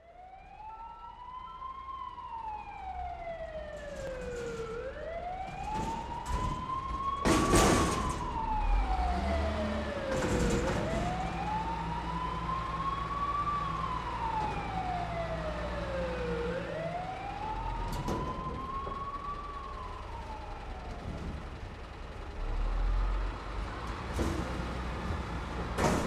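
Emergency vehicle siren wailing, its pitch rising and falling slowly about every six seconds over a low vehicle rumble. Two short loud bursts cut in about seven and ten seconds in.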